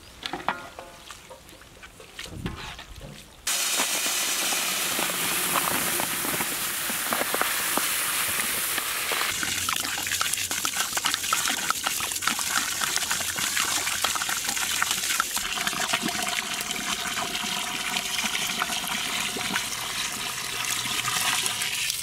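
A few light knocks, then, about three and a half seconds in, a stream of water starts suddenly and keeps pouring steadily into a large pot of raw long-grain rice, washing the rice.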